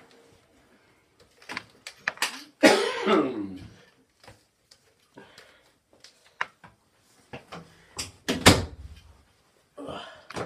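A series of knocks and thumps. About three seconds in there is a short voice-like sound that falls in pitch, and a heavy thump comes past eight seconds.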